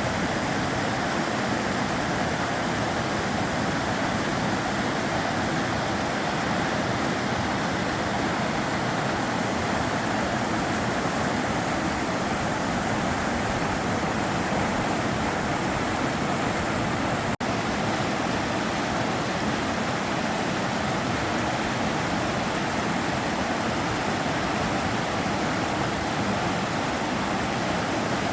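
Sava River water rushing steadily, a continuous even hiss of flowing water. The sound drops out for an instant a little past the middle.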